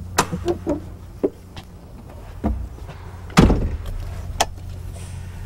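A run of knocks and thumps as a man climbs into a truck cab and settles into the driver's seat. The loudest is a heavy thump about three and a half seconds in.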